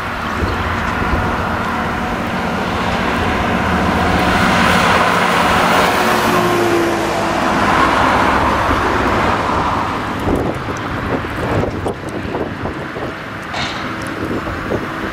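A car passing close by on the road, its tyre and engine noise swelling and then fading over several seconds, over the steady low running of a tractor engine.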